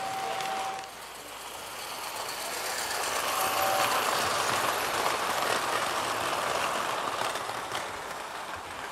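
Model train running on a show layout, with a rushing noise that swells up and holds. A short two-note whistle sounds about three and a half seconds in, and an earlier held whistle note cuts off just under a second in.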